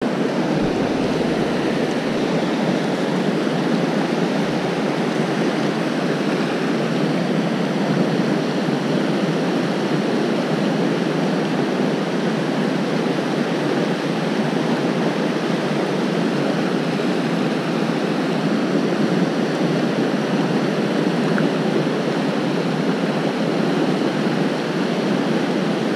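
River riffles and rapids rushing over rocks, a loud steady water noise.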